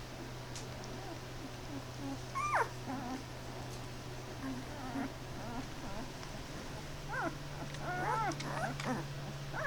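Ten-day-old Great Pyrenees puppies whimpering: a single high squeak that falls in pitch about two seconds in, then a run of short squeaks near the end.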